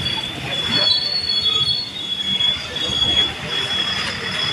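Street traffic: a water tanker truck and motorbikes rolling past, with a low rumble and a high squeal that keeps breaking off and coming back every half second or so.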